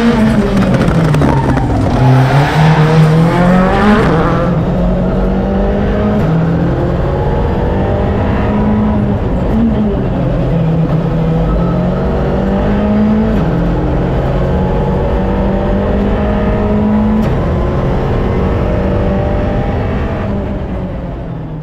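Skoda Fabia Rally2 Evo's turbocharged four-cylinder engine heard from inside the cabin, its pitch climbing and dropping in steps as it works through the gears. The first few seconds are louder and noisier, and the sound fades away near the end.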